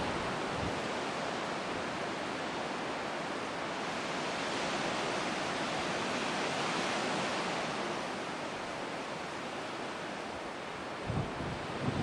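Wind rushing over the camera microphone, a steady hiss that swells and eases, with a couple of low buffets near the end.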